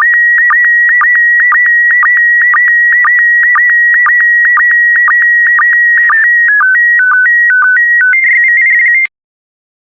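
Slow-scan TV signal in PD120 mode: a steady tone near 2 kHz broken by short sync dips about twice a second as the image's scan lines are sent. About six seconds in it changes to a run of stepped tone shifts and then a fast warble, and it cuts off with a click just after nine seconds as the transmission ends.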